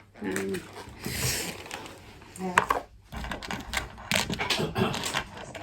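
Handling noise of small objects: a run of sharp clicks and rustles in two clusters, the first about a second in and the second near the end, mixed with short snatches of voice.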